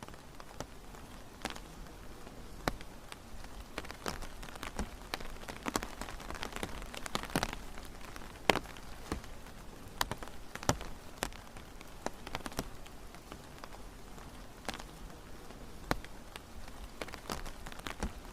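Rain falling, a steady hiss with individual drops landing in sharp, irregular taps, some of them louder and close by.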